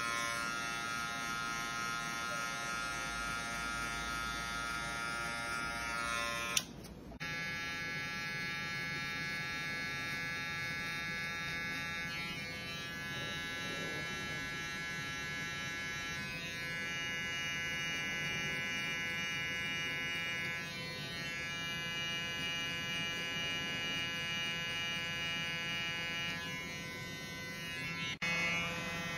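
Electric hair clippers buzzing steadily as they cut short hair. The buzz breaks off briefly about seven seconds in and comes back at a different pitch.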